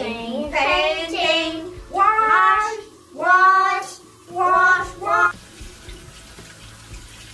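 A child singing in short phrases while a bathroom tap runs into the sink. The singing stops about five seconds in, leaving only the quiet hiss of the running tap.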